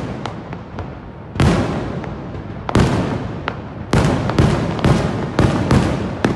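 Fireworks going off: a string of sharp bangs with a rumbling crackle between them. The bangs are spaced out at first and come about twice a second in the second half.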